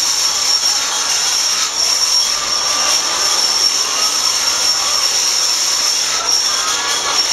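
A huge flock of brown laying hens calling all at once: a dense, continuous din of overlapping clucks and squawks over a steady high hiss.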